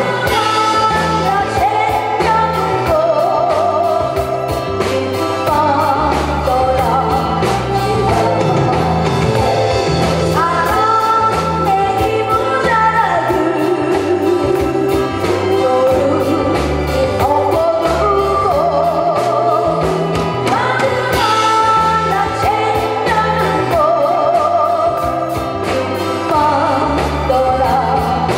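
A woman singing a Korean song live into a hand microphone, with acoustic guitar and a steady beat and bass line accompanying her.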